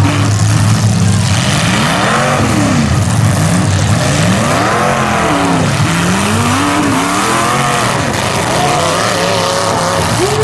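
Demolition derby cars' engines revving hard over and over, their pitch rising and falling in quick sweeps about every second or two as the cars push and ram one another.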